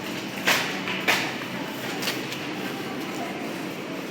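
Steady rumbling noise with a faint low hum, broken by two sharp clicks about half a second and a second in, and fainter clicks about two seconds in.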